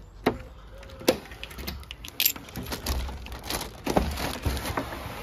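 Keys jangling and a front door clicking and knocking irregularly, about eight sharp clicks and knocks, as the door is opened by hand.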